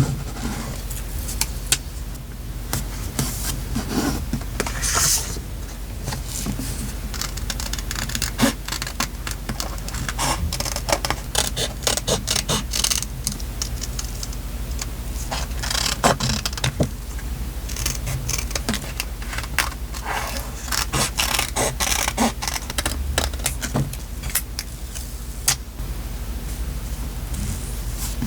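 Paper and sticker handling for journal decorating: irregular rustling and crinkling with many light taps and clicks, over a steady low hum.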